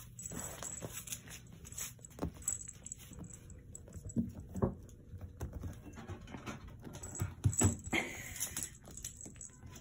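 Scattered soft thumps, rustles and light clinks of a harnessed cat moving about on a wooden floor and pawing at a fabric sofa cover, with the leash clip jingling; a cluster of louder knocks and a rustle comes near the end.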